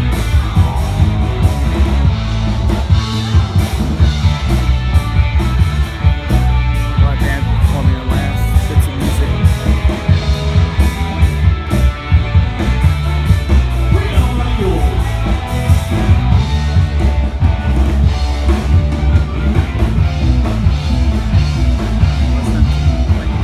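Loud rock music with a steady drum beat, bass and singing.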